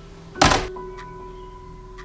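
A front door slamming shut once about half a second in, a short loud thud that quickly fades, over background music with steady held tones.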